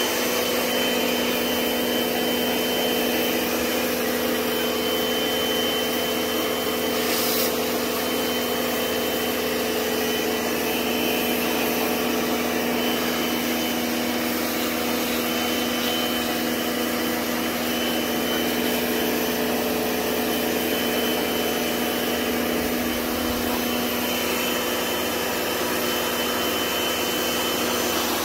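An electric motor running steadily under load, a constant whine over a hiss.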